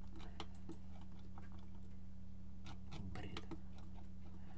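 Irregular clicks of a computer mouse and keyboard, with a quick run of them about three seconds in, over a steady low hum.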